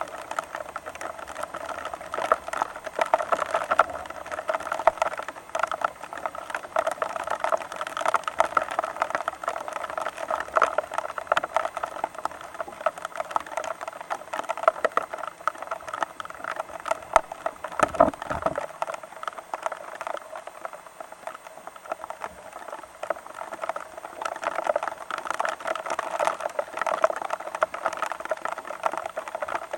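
Steady rain pattering: a dense, continuous run of fast drops. A short low thump comes partway through.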